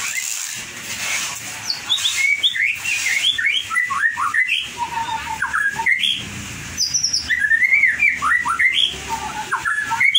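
White-rumped shama (murai batu) singing: quick runs of varied whistled notes sliding up and down, in two long phrases with a short break between them.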